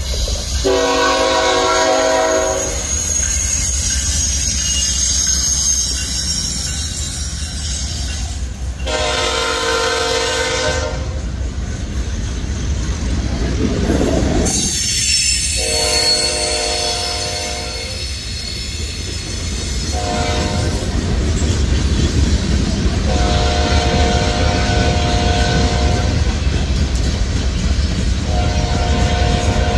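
Norfolk Southern freight train's diesel locomotive horn sounding six blasts, five long and one short, as the train approaches and rolls by. Under the horn, the train rumbles and clatters steadily, swelling about halfway through as the locomotives pass and the freight cars follow.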